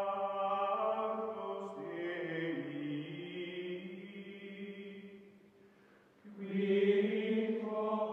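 Background music of slow chanting voices holding long, sustained notes; the first phrase fades out about two-thirds of the way through, and a second held phrase comes in near the end.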